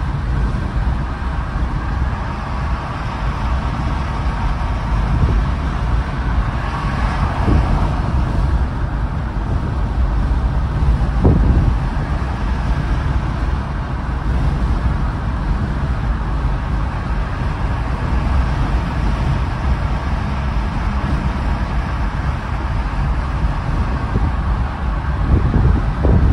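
Steady road noise of a car driving at highway speed: a low rumble of tyres on the pavement with wind noise, swelling briefly around seven seconds in.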